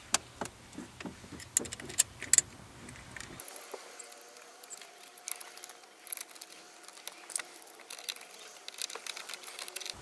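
Scattered small metal clicks and taps as the ignition switch actuator mechanism is fitted to the steering column and its fastener tightened by hand. The sharpest clicks come in the first couple of seconds, with lighter ones later.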